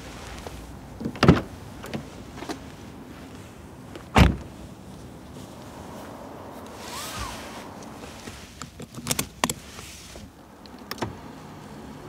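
Door of a Porsche 911 GT3 being opened and the driver getting in: sharp clicks and clunks from the flush door handle and latch, a heavy thud about four seconds in, a soft rustle, then a further cluster of latch clicks and knocks.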